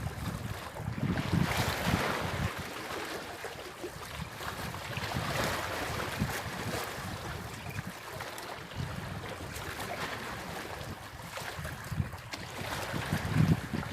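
Wind buffeting the microphone over the wash of water, in uneven gusts.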